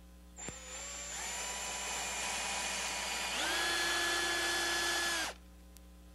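Cordless drill boring a pilot hole into the soft, porous wood of a rocking-chair rocker. The motor whine starts about half a second in, steps up in speed and loudness twice, and cuts off suddenly near the end.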